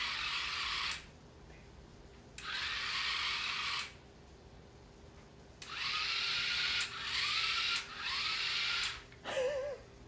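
Four small DC gear motors of a Raspberry Pi–controlled robot car whirring in short runs, switched on and off by its relays. There are about five bursts, each a second or so long, with short gaps between them and a pitch that rises as the motors spin up.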